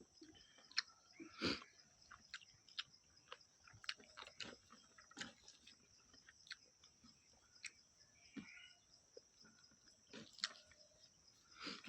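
A person eating chicken curry: faint, irregular chewing and wet mouth clicks, with a louder smack about one and a half seconds in.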